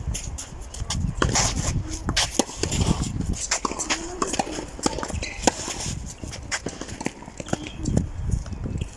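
Tennis rally on a clay court: sharp racket-on-ball strikes and ball bounces, mixed with players' shoes scuffing and stepping on the clay.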